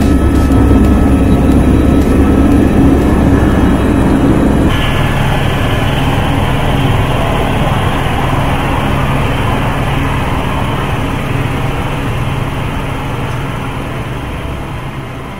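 Helicopter taking off and climbing, heard from inside the cabin: steady engine and rotor noise, heavy and low at first, changing abruptly a few seconds in, then fading slowly toward the end.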